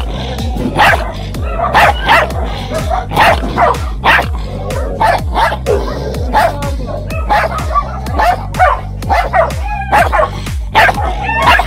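Dogs barking repeatedly, about once a second, over background music with a deep bassline.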